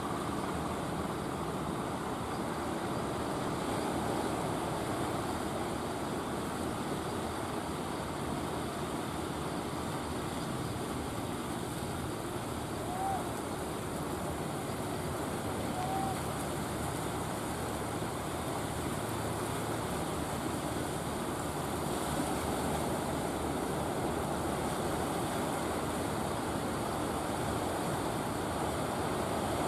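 Engine of a wooden outrigger fishing boat running under way, mixed with steady surf and wind noise, growing a little louder near the end. Two short high chirps about three seconds apart come around the middle.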